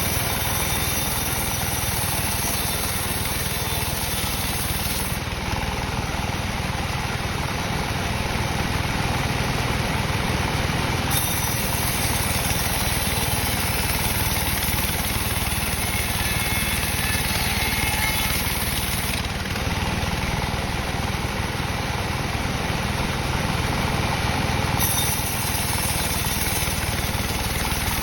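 Sawmill machinery running steadily while a dry teak log is sawn into beams. A high hiss comes in and drops out in long stretches of several seconds over the constant running noise.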